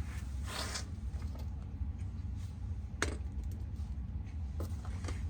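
A few light knocks and handling noises, with one sharp click about three seconds in, over a steady low hum.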